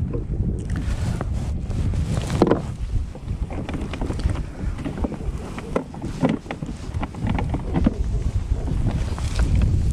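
Wind buffeting the microphone with a steady low rumble, over scattered small knocks and clicks; the sharpest knock comes about two and a half seconds in.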